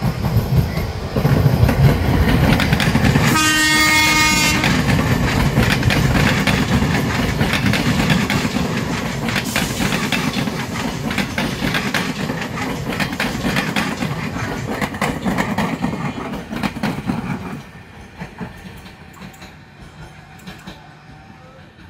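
Tokyu 8500-series electric commuter train passing close by: one horn blast about three seconds in, lasting about a second, over the rumble and clatter of its wheels on the rails, which drops off sharply a few seconds before the end.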